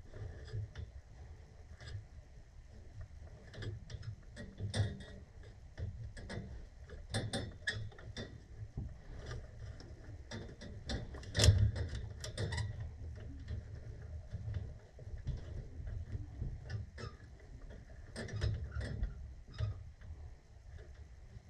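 Irregular clicks and small metallic knocks of hand tools and fittings being handled during a gas valve replacement, with one louder knock about halfway through.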